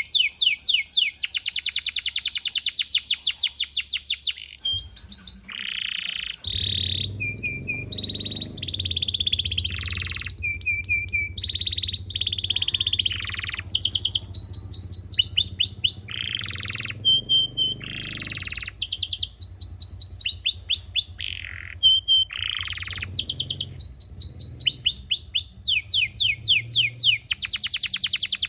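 Canary singing a long, unbroken song of fast trills and rolls, rapidly repeated notes that change from phrase to phrase. A low hum runs underneath through the middle of the song.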